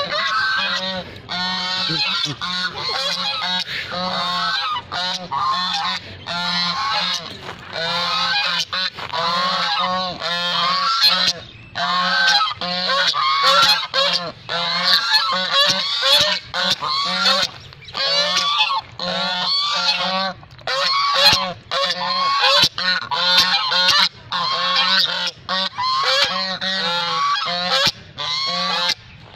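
Several white domestic geese honking over and over, their short calls overlapping in quick succession with only brief breaks.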